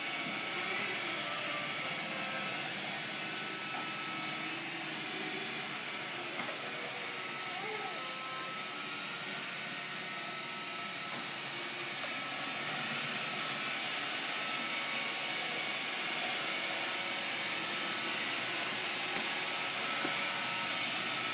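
Roomba robot vacuum running: a steady hiss of its motors and brushes with a few faint steady tones.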